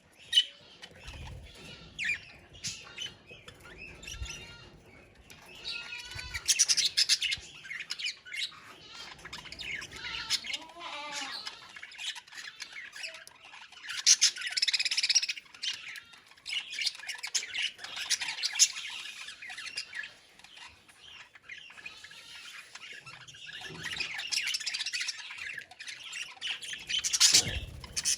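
A flock of budgerigars chattering, warbling and squawking together, with louder bursts of many birds calling at once several times.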